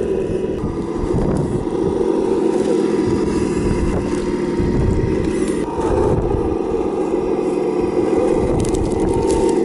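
Engine sound from a Sense Innovations ESS-One+ sound module in an RC scale Land Rover Defender D90 crawler, running steadily and shifting slightly in pitch a couple of times, with wind buffeting the microphone.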